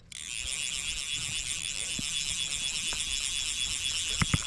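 A steady high-pitched buzz with a fine rapid pulsing, starting abruptly. Two light clicks come close together near the end.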